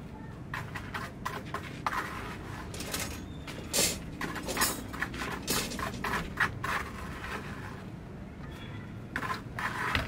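A run of irregular knocks, clinks and short scrapes of hard objects being handled, loudest in the middle and again near the end.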